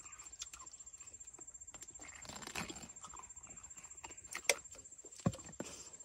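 Mouth noises of eating fried chicken: quiet chewing with a few sharp lip smacks and clicks.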